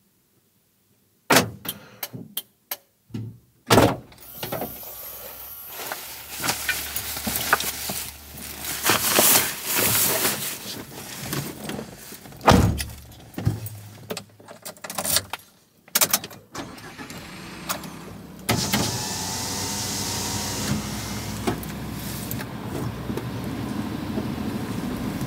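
A light truck: a string of clicks and knocks like doors and latches, then the vehicle running, uneven with further knocks at first and steadier and louder for the last seven seconds or so.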